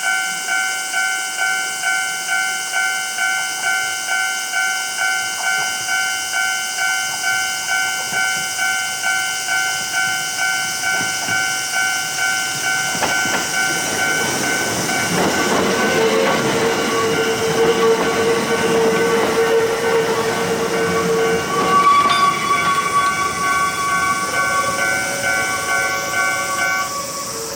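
Japanese railroad crossing bell ringing its repeating kan-kan, about two strokes a second, while a Kintetsu electric train passes. Partway through, the rumble of wheels on rails comes in, with a steady whine held for several seconds. The bell stops near the end.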